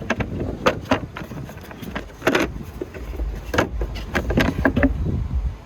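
Irregular sharp plastic clicks and knocks as the fuse box cover under the van's hood is worked and slid off, over a low rumble.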